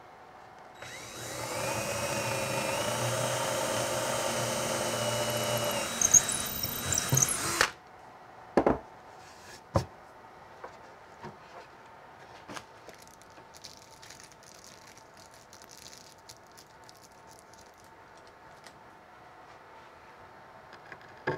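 Cordless drill boring a hole through a wooden cabinet door for a knob: the motor spins up, runs steadily for about seven seconds with a few sharp clicks near the end, then stops suddenly. Two sharp knocks follow a second or two later, then only faint small ticks.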